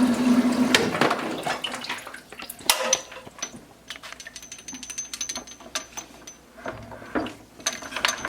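Small circulation pump humming over trickling vinegar solution cuts out about a second in as it is unplugged. Then scattered clicks and knocks of hoses and fittings being handled, with one louder knock near three seconds in.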